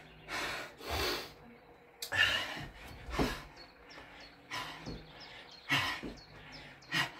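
A man breathing hard and fast with short, forceful puffs about once or twice a second, now and then a low grunt, from the exertion of unbroken Navy Seal burpees.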